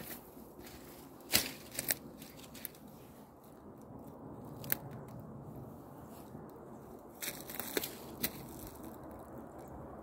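Footsteps crunching through dry brush and snow, with scattered sharp snaps of twigs breaking: two loud ones about a second and a half in, another near five seconds, and a cluster around seven to eight seconds.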